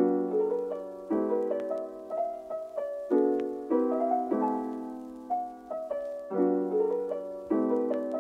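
Background piano music: gentle chords struck about once a second, each fading away before the next.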